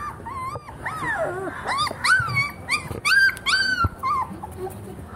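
A dog whimpering and whining in a quick string of short, high-pitched calls, each rising and falling, about two a second, with a brief gap about four seconds in.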